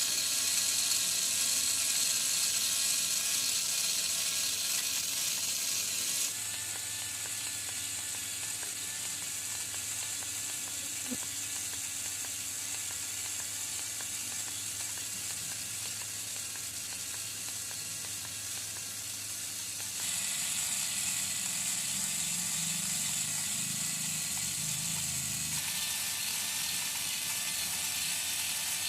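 Small electric motors and gears of a homemade miniature tractor digging machine running with a steady whir. The sound changes about six seconds in and grows louder about two-thirds of the way through.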